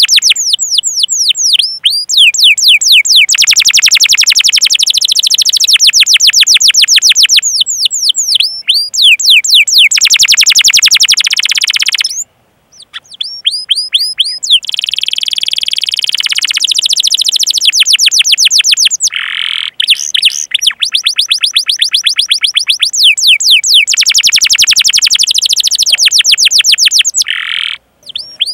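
Domestic canary singing a long rolling song: fast trills of high, down-sweeping notes repeated many times a second, with two short breaks.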